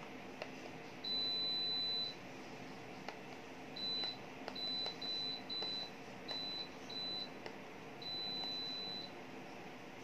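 Midea wall-mounted split air conditioner's indoor unit beeping in reply to remote-control button presses. One high beep of about a second, then six short beeps, then another long beep near the end. Underneath are the steady hum of the unit running and a few faint button clicks.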